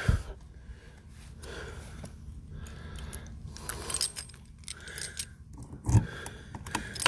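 Keys jangling as a key is worked into the lock of a motorhome's entry door, after a run of soft footsteps. A dull thump comes about six seconds in.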